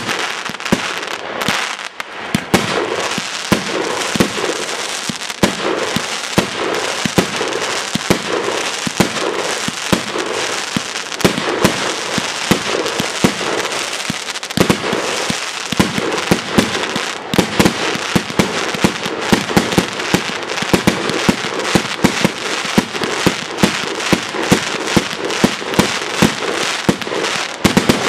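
Fireworks going off in a rapid, continuous barrage: many sharp bangs a second over steady crackling, with louder single reports standing out near the end.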